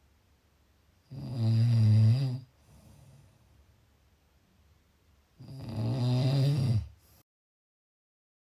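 Snoring: two loud, low-pitched snores about four seconds apart, each lasting about a second and a half, with quieter breathing between them. Shortly after the second snore the sound cuts out abruptly to dead silence.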